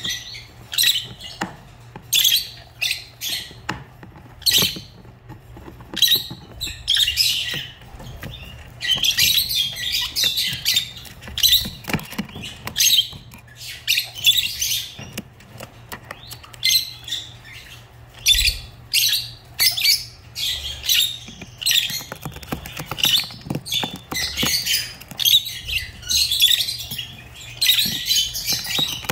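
Lovebirds chirping: a steady stream of short, high calls, with busier stretches of chatter about a third of the way in and near the end.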